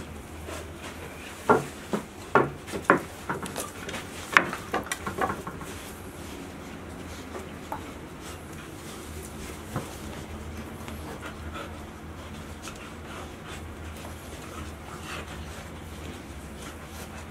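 Golden retriever puppies and an adult golden retriever playing rough over a towel on the floor. A quick run of loud, short, sharp sounds comes in the first few seconds, then quieter rustling.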